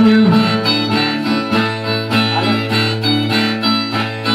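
Brazilian viola playing a repeated plucked instrumental phrase between sung verses, with the singer's last held note fading out at the very start.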